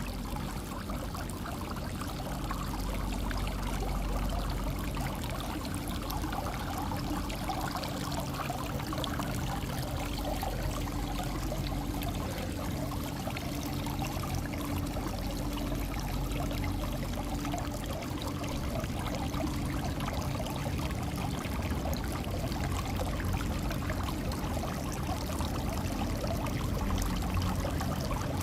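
Water fountain running, with a steady flow of pouring and trickling water.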